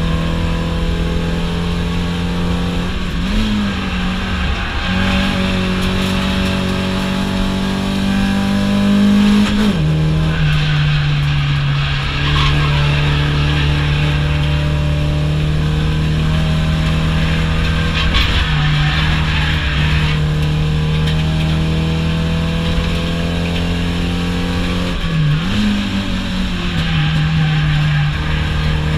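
Race-prepared car's engine heard from inside the cabin while lapping a circuit: a loud, steady engine note that shifts pitch a few times as the car changes gear or lifts, about three seconds in, near ten seconds and near the end, over constant tyre and road noise.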